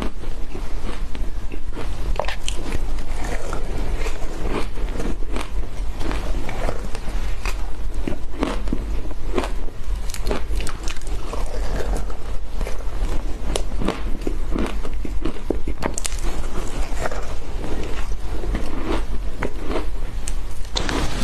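Loud biting, crunching and chewing of matcha shaved ice: a dense, irregular run of crisp icy crackles.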